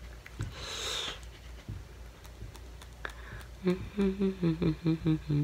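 A breathy exhale about half a second in. From about three and a half seconds in, the same voice makes a run of short wordless pitched sounds, about four a second.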